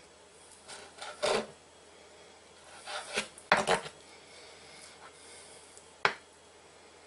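Kitchen knife slicing raw pigeon breast on a plastic cutting board: short scrapes of the blade against the board about a second in and again around three to four seconds in, then a single sharp knock about six seconds in.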